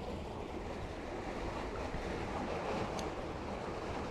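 Steady rushing of fast-flowing creek water, with a single small click about three seconds in.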